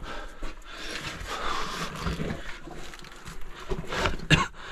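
Clothing and gear scraping and rustling against dirt and stone as a person crawls through a narrow earthen tunnel, with a few sharp knocks near the end.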